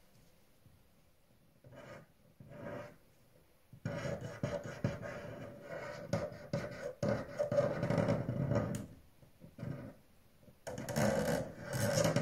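A red pencil scratching across a sheet of paper on a wooden table top while drawing: two short strokes after a quiet second or two, then about five seconds of quick, dense strokes, and another short run of strokes near the end.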